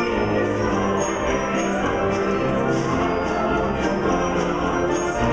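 Concert wind band of woodwinds and brass playing, with notes and chords held for about a second at a time.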